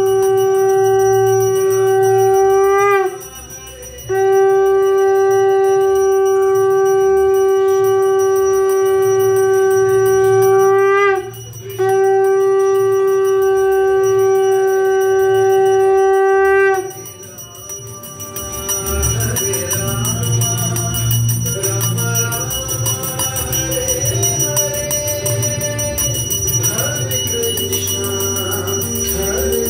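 Conch shell (shankha) blown in long, steady blasts, each dipping in pitch at its end: one already sounding at the start, then two more of about seven and five seconds. In the last third, bells ring along with music.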